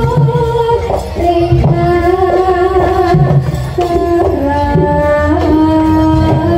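Live jaranan gamelan accompaniment: kendang drums beating under a melody of long held notes that step from pitch to pitch.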